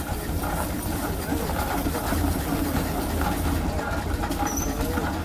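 Steam traction engine running as it drives slowly across the ground, a steady mechanical clatter over a low rumble.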